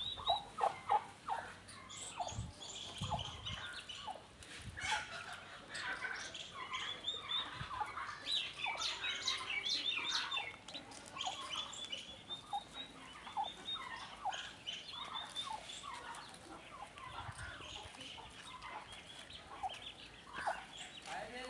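A brood of domestic turkey poults peeping continuously in many short, high calls that bend in pitch, with scattered lower calls from the hen among them.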